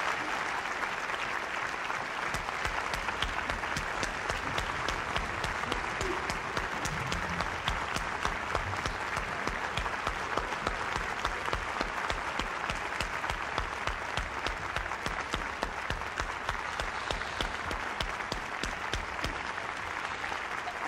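Concert-hall audience applauding at the end of an opera aria: a long, steady round of clapping, a dense wash at first, with single claps standing out more as it goes on.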